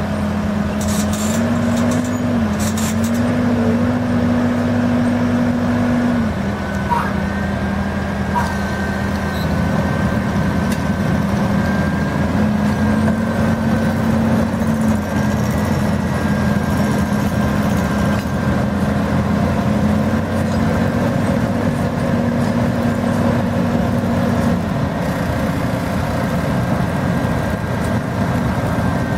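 Heavy vehicle's engine running steadily, its speed stepping up and down several times, with a thin steady whine above it from about a quarter of the way in.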